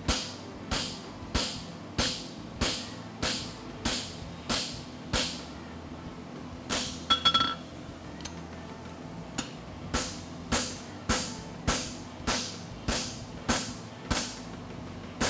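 Steady hammer blows on a handled tool held against a red-hot steel horseshoe on an anvil, about one and a half strikes a second, each with a short metallic ring. The farrier is working the boxing out of the shoe's outside branch. The blows stop for a second or two midway, with a brief ringing clank, then resume.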